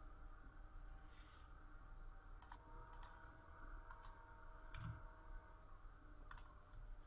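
A handful of short, sharp computer mouse clicks and keyboard keystrokes, spaced about a second apart, over a faint steady hum.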